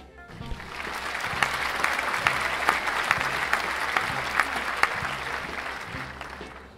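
Applause from a crowd, dense clapping that swells in about a second in, holds for several seconds and fades out near the end, laid over a funky lounge-pop backing track.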